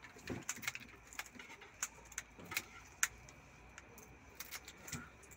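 Two pairs of scissors snipping through the shells of big river prawns: irregular sharp clicks and crunches, about three a second.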